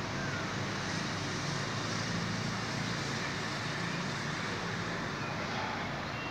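Steady background noise: a low hum under an even hiss, with no distinct event standing out.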